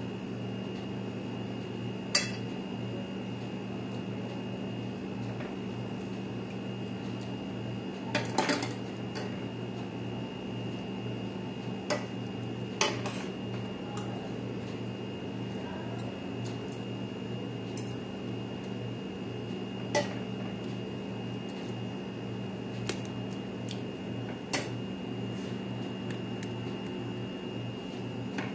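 A metal ladle clinking now and then against a stainless-steel pot and a ceramic plate as noodle soup is served out, about ten short clinks spread over the stretch. A steady hum runs underneath.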